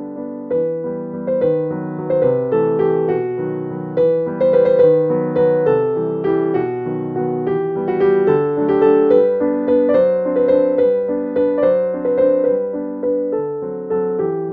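Background music: a gentle piano melody played in steady notes.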